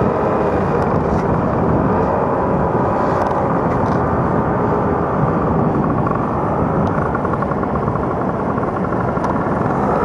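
Paramotor engine running steadily under a dense rushing noise, a faint even drone coming through more clearly in the second half.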